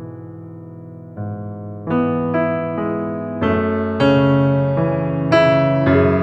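Background music: slow electric piano chords and notes, building from soft sustained chords to louder, brighter notes about two seconds in.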